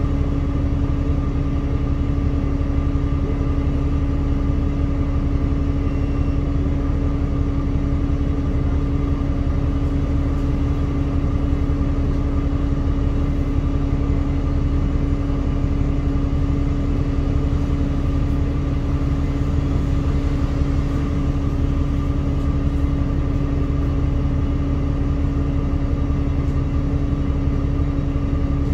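Alexander Dennis Enviro200 MMC single-deck bus idling at a stop, heard from inside the passenger saloon: a steady diesel rumble with a constant hum that does not change.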